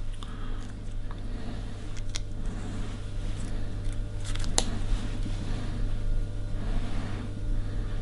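Quiet fly-tying handling sounds: faint rustling and two small sharp clicks, about two seconds in and again past four seconds, over a steady low hum, as peacock herl is taken up to tie in.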